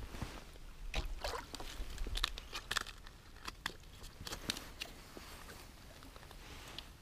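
Handling noises of an ice angler working a just-landed fish, rod and line by hand: scattered light clicks and taps with some rustling of clothing, busiest in the first few seconds and then fading.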